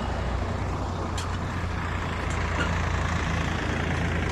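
A heavy motor vehicle's engine running with a steady low rumble and a broad rushing noise over it. There is a single sharp click about a second in.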